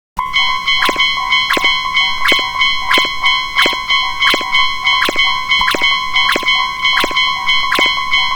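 Japanese railway level crossing warning bell ringing: a quick, even ding, about three strokes a second, over a sustained metallic ringing tone.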